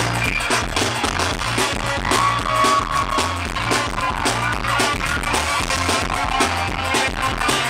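Live band playing loud amplified music with electric guitars, keyboards, bass and a steady drum beat.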